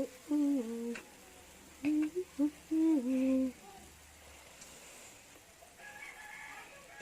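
A person humming two short phrases of a tune, each with held notes that step down in pitch.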